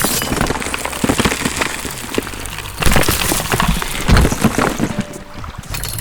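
Crashing and breaking sound effects: a dense run of clattering knocks and smashes, with the heaviest hits about three and four seconds in.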